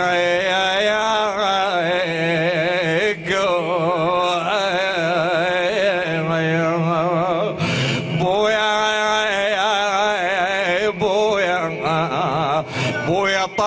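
A man chanting an Iraqi nai, a mourning lament for a father. He sings long, wavering melismatic phrases, breaking for breath about three seconds in, around eight seconds in and near the end.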